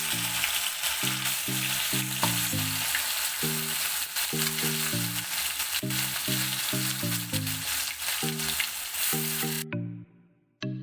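Hot-oil tempering of mustard seeds sizzling steadily in the pan, with a few sharp pops. The sizzle cuts off suddenly near the end.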